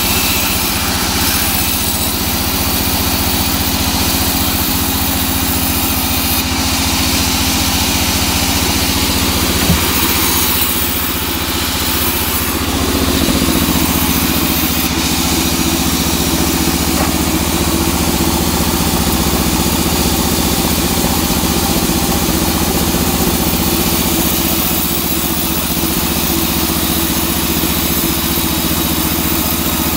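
Vertical band saw running steadily as its blade rips a small teak log lengthwise, a steady hum with a broad rushing noise of the cut. A single sharp knock about ten seconds in.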